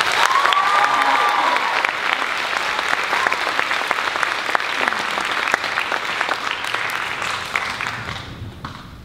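Audience applauding a choir's finished song, with dense clapping that fades out near the end. A short high note rises above the clapping about half a second in.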